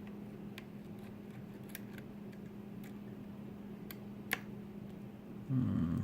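Lock picks working the pins of a pin-tumbler challenge lock: small, sparse metallic clicks, with one louder click a little past four seconds in. A brief low, muffled bump near the end is the loudest sound.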